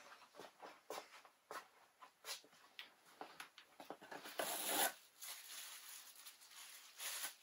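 Faint scattered clicks and rustles of hands handling things at a workbench, with a louder rustle lasting about half a second a little past the middle.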